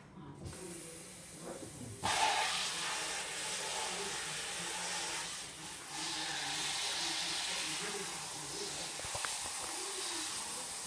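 Kitchen faucet running into a plastic container at the sink: a trickle that opens up about two seconds in to a steady, full rush of water.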